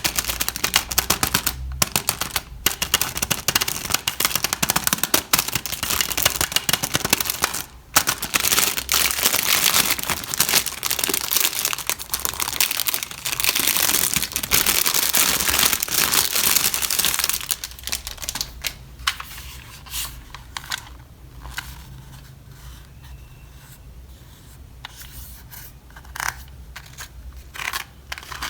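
Toy packaging being crinkled and torn open, a dense crackling for roughly the first seventeen seconds, then quieter scattered rustles and taps.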